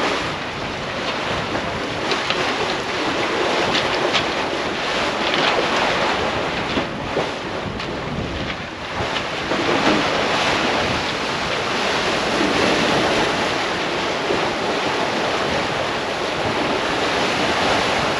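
Sea water rushing and splashing past a Leopard 45 catamaran under sail and churning in its wake, with wind buffeting the microphone. The rush rises and falls in gentle surges.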